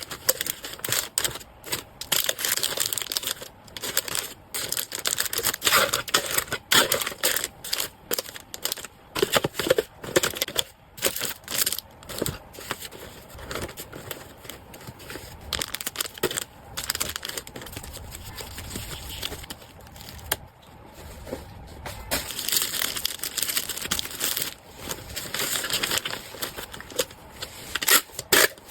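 Packaging being handled: irregular crinkling and rustling of wrapping with frequent small clicks and taps.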